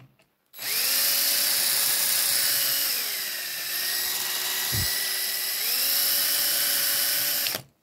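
Handheld electric drill with a high-speed steel bit running as it drills out the rivet in a die-cast model's baseplate. The motor whine holds steady, dips lower in pitch about three seconds in, climbs back near six seconds, and stops suddenly just before the end.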